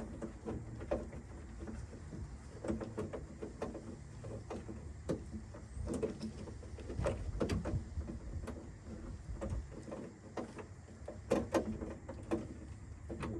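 Irregular small metal clicks and knocks as a 10 mm bolt is fitted into the truck's door to hold the door handle, the bolt proving hard to start in its thread.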